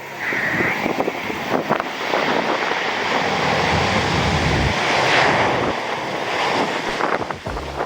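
Jet engine noise from a landing Boeing 787-8 with Rolls-Royce Trent 1000 engines, mixed with strong wind buffeting the microphone.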